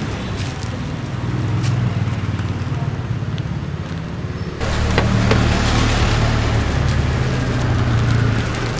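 Steady low rumble of street traffic, which gets louder about halfway through, with a few light clicks and plastic rustles from bananas being pressed flat in a plastic bag on a cutting board.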